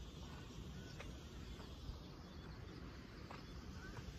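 Quiet outdoor background: a steady low rumble, with a few faint bird chirps near the end.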